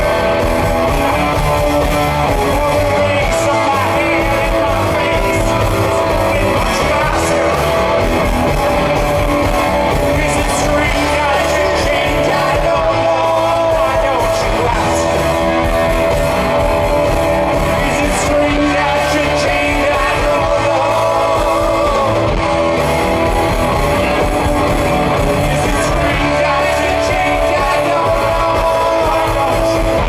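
Live rock band playing: electric guitars, electric bass and drum kit, with a man singing.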